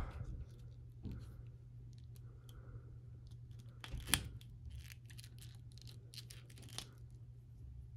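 Plastic joints of a McFarlane DC Multiverse Grim Knight action figure being handled around a hip whose leg has come off. There are faint clicks and scrapes and one sharper click about four seconds in. The pegs at the joint have cracked.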